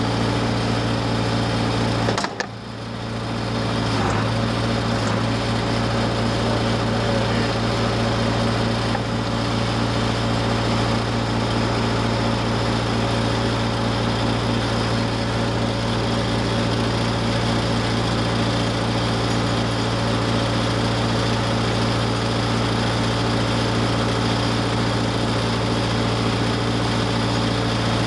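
Engine of a 1968 Case 580CK backhoe running steadily, with a brief dip in level about two seconds in.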